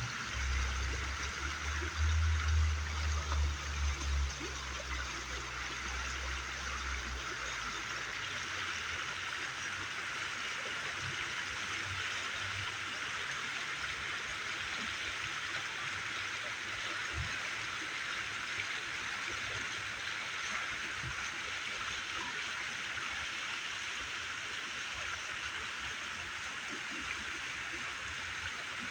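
Steady rush of flowing water, with a heavy low rumble for the first several seconds.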